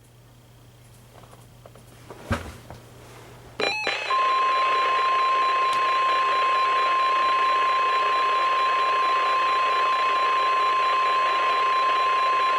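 NOAA Weather Radio 1050 Hz warning alert tone from a weather radio's speaker: one steady high tone held for about nine seconds over radio hiss. It starts about four seconds in, after a faint hum, a click and a short burst of noise. The tone signals that a warning broadcast follows, here a special marine warning.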